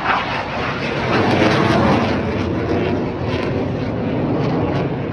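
Jet aircraft roar of Black Eagles T-50B jets flying over, a loud rushing noise that swells about a second in and slowly eases.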